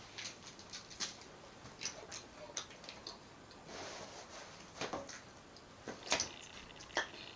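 Close-up eating sounds: a cheeseburger slider being chewed, with irregular wet mouth clicks and smacks and a short rustle about four seconds in.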